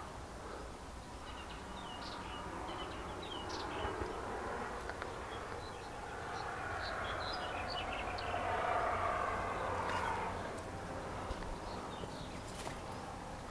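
Countryside hillside ambience: scattered short, high chirps of small birds over a steady background wash that grows louder in the middle, with a low rumble underneath.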